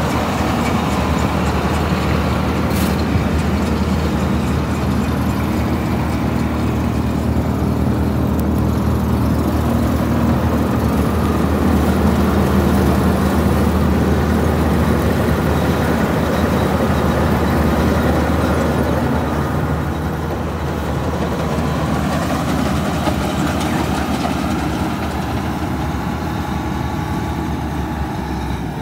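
John Deere 8820 combine's diesel engine idling steadily: a low, even drone that gets slightly fainter in the last few seconds.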